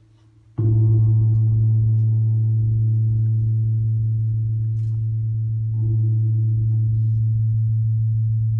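A deep ringing metallic tone struck sharply about half a second in. It holds on with little fading and is struck again near six seconds.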